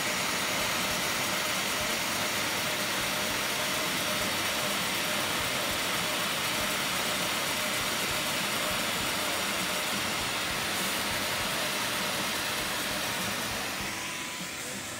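Onefinity Elite Foreman CNC spindle driving a 1/4-inch compression bit through PVC sheet on a clearing pass: steady, loud cutting noise, with the dust-collection vacuum running. It eases off a little near the end.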